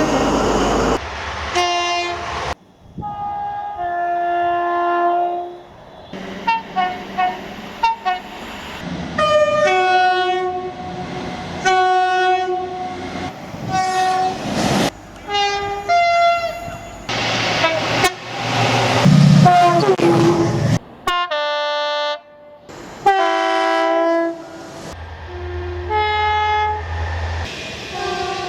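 A rapid series of different train horns, one clip after another: short single or two-note blasts at varying pitches, each cut off abruptly, with a low engine rumble under some of them.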